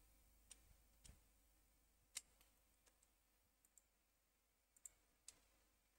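Faint, sparse clicks of a computer mouse and keyboard, about seven in all, the loudest a little after two seconds in and a quick double click near the end.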